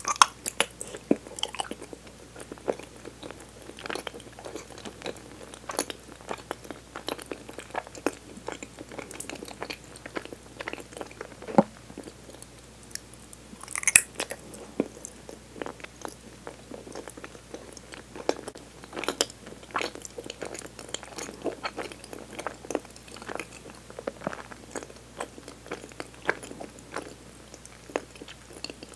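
Close-up chewing of a soft, firm jelly-like sweet: a steady stream of small wet mouth clicks and smacks. There is a sharper bite near the start and another about 14 seconds in.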